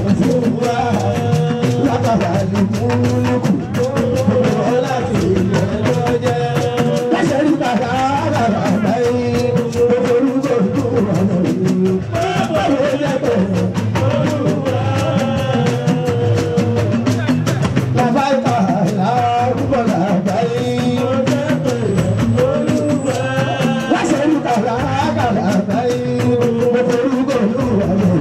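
Live fuji music: a male singer sings into a microphone over a band with drums and percussion.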